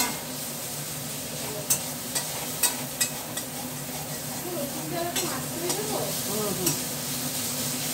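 Food sizzling in a small metal wok on a gas burner as it is stirred, with a steady frying hiss and a handful of sharp taps and scrapes of the spatula against the pan.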